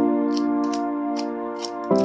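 Background music: sustained keyboard chords with a light ticking beat, the chord changing near the end.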